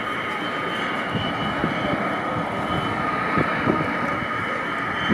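Jet airliner engine sound played from loudspeakers for a scale-model KLM Boeing 747 taxiing: a steady whine over an even rushing noise.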